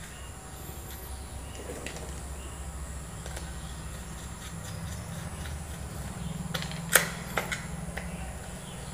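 Faint clicks and taps of a small screwdriver working the brass terminal screws of a plastic switch board, with one sharper click about seven seconds in and a few lighter ones after it.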